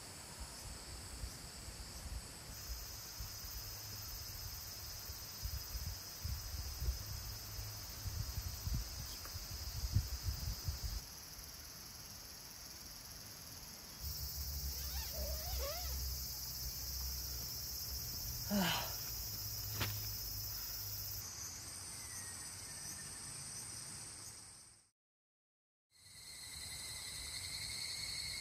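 Summer insect chorus of steady high-pitched buzzing and trilling, its pitch and mix shifting abruptly several times. A low rumble with a few louder knocks runs under it for the first ten seconds or so, and the sound drops out briefly near the end.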